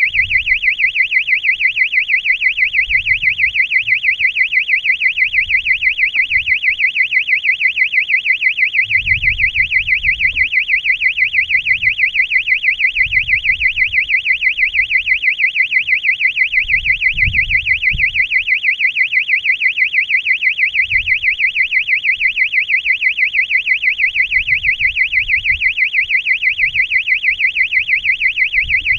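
Electronic locator siren on a high-altitude balloon payload sounding continuously: a high-pitched warble that wavers about five times a second, with faint low rumbles of the payload buffeting now and then.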